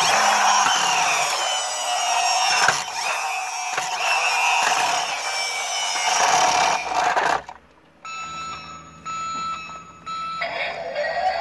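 Toy cement mixer truck's friction inertia motor whirring as the truck is pushed along, for about seven seconds. After a short pause the toy's speaker plays electronic sound effects: a steady tone with short breaks, then, near the end, a noisier sound with a rising pitch, triggered by the buttons on the cab roof.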